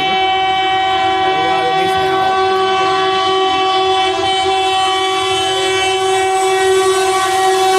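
WAP-4 electric locomotive's horn sounding one long, unbroken blast as the express approaches to run through the station, growing slightly louder near the end.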